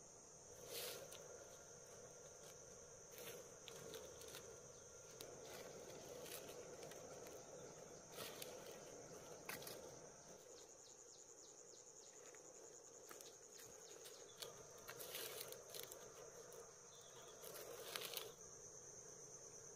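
Faint, steady high-pitched chirring of insects such as crickets, with scattered short clicks and rustles throughout.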